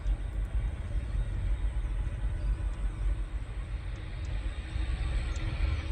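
Boeing 787-9 jet engines running at takeoff power on the runway, heard from a distance as a steady low rumble with a faint hiss above it.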